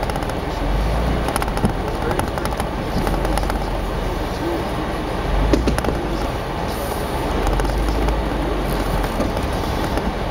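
Jeep Wrangler JK Unlimited driving on a snow-covered track with its front differential broken, which the driver hopes is a spider gear: a steady low rumble of drivetrain and tyres with scattered clicks and knocks, one sharp knock about halfway through.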